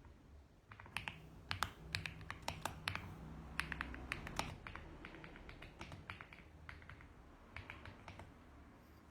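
Typing on a mechanical keyboard: uneven runs of sharp key clicks starting about a second in, thinning out in the middle, with a short flurry near the end.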